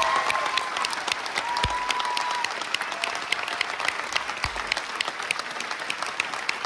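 An audience and cast applauding, with many sharp individual claps close by over a dense wash of clapping, gradually dying down.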